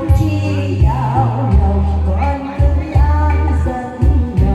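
A song: a voice singing a wavering melody over music with held bass notes.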